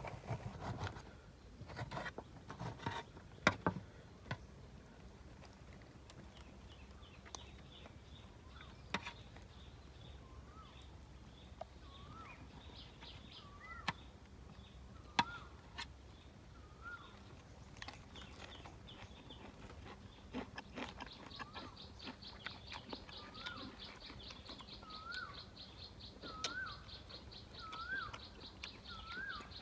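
A bird repeats a short rising-and-falling whistled call about once a second, over a fast, steady, high insect trill that grows louder about two-thirds of the way through. In the first few seconds there are sharp taps and clicks from knife work and eating.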